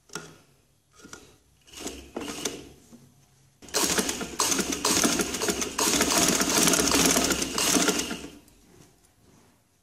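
Sewing machine stitching, running in a steady rattle for about four and a half seconds from about four seconds in, then stopping. Before it come a few short sounds as the cloth is set under the foot. It is sewing down the folded piping on a neckline.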